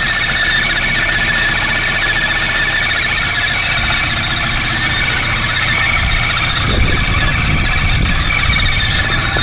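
Loud, steady screech from the serpentine belt area of a VW Mk3 Golf GTI's 2.0 engine with around 240k miles, running over the engine's low rumble, which grows stronger in the second half. The owner is unsure whether it is just the belt or a more serious part behind it.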